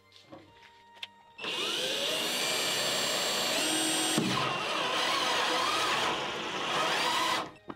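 Power drill running steadily for about six seconds, starting about a second and a half in, its pitch wavering under load.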